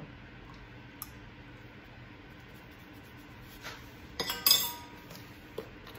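A few sharp metallic clinks with a short ringing, about four seconds in, as a metal teaspoon knocks against a stainless steel mixing bowl; a faint tick comes about a second in.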